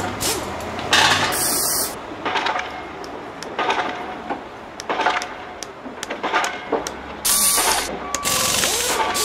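Socket ratchet clicking in short runs, with scattered small metal clicks, as valve cover bolts are cinched down in a star pattern.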